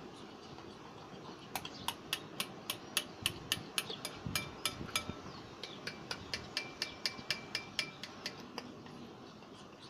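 Stirring a stiff homemade slime mixture of white glue and foam, the utensil clicking against the container about four times a second, with a short break midway; some clicks ring briefly.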